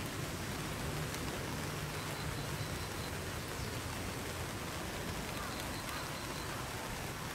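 Steady background noise: an even hiss with a low hum underneath and no distinct events.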